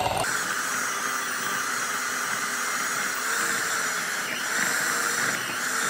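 Electric hand mixer running steadily on medium speed, its beaters creaming butter, sugar, eggs and vanilla together.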